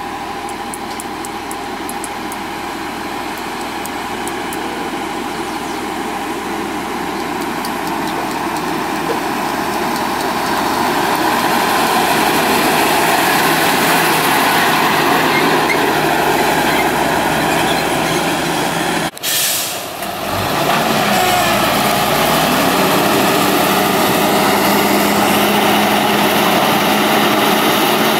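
Diesel engine of a loaded ten-wheel dump truck running as the truck approaches on a dirt road, growing louder. After a cut about two-thirds in, the engine runs steadily with a held hum while the bed tips up and the load of earth slides out.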